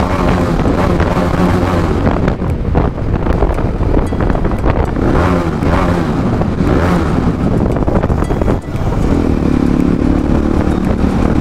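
TVS Apache RR310's single-cylinder engine running through an aftermarket Akrapovic exhaust, revving up and easing off several times while riding inside an underpass tunnel.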